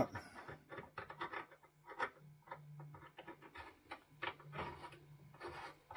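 Faint scattered clicks and light scrapes of small metal parts of a spark tester being handled and fitted together by hand, with a faint low hum coming and going underneath.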